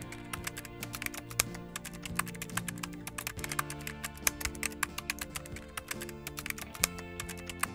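Rapid, irregular computer-keyboard typing clicks, a sound effect for on-screen text being typed out, over background music with held notes.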